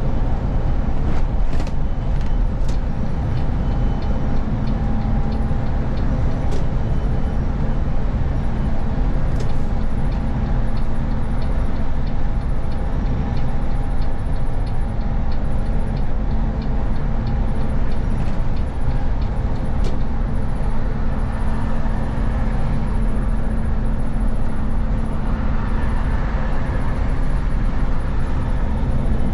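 Bus engine and tyres running steadily at motorway speed, heard from the driver's cab. A regular light ticking runs for about ten seconds in the middle, and a few sharp rattles come in the first seven seconds.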